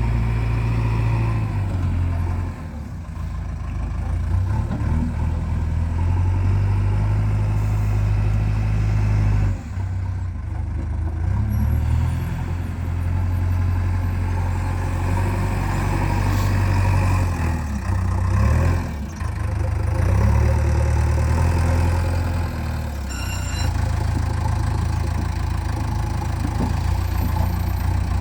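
Heavy diesel engine of earthmoving machinery running throughout, its note rising and dipping several times as the load changes while a backhoe loader digs and loads mud.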